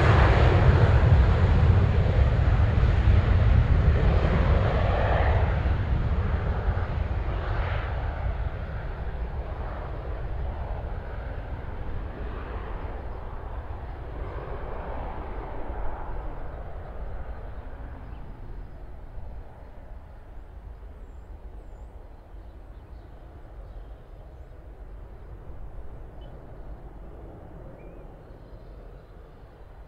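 Jet airliner's engines, loud at first and then fading steadily as the aircraft moves away. The higher tones die out first, leaving a low rumble.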